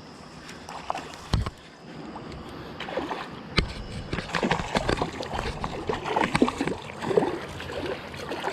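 Creek water splashing and sloshing, with irregular knocks and rustles close by, as a hooked trout is brought in. There are two louder thumps, one about a second and a half in and one a little past halfway.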